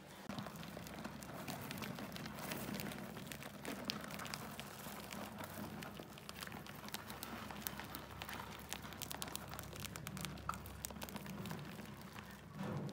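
Many trapped mice scrabbling and scratching inside a plastic bucket: a dense, irregular patter of small clicks and rustles over a low steady hum.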